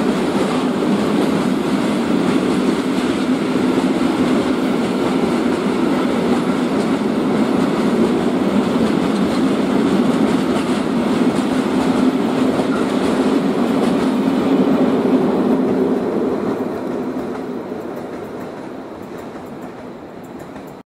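Freight train of high-sided open wagons rolling past, a steady rumble of wheels on rail that fades away from about two-thirds of the way through as the last wagons pull off.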